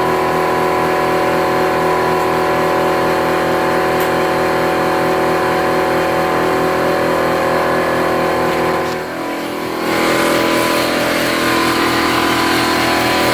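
Ridgid portable air compressor's electric pump running steadily, with a brief dip in level about nine seconds in, then stopping suddenly near the end.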